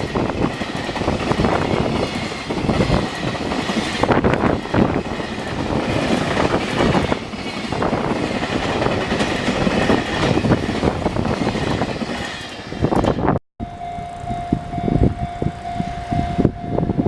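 A train running over a level crossing: a loud, continuous rumble and clatter of wheels on the rails. After a sudden cut, a steady single-pitched warning tone sounds, typical of the crossing's alarm bell, over lighter rumbling and knocks.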